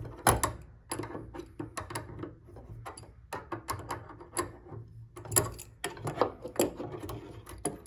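Crescent wrench and vise grips clicking and clinking on the bolt and nut at the bottom of a piano pedal rod as it is loosened: a string of irregular metal taps and knocks, busiest and loudest about five to seven seconds in.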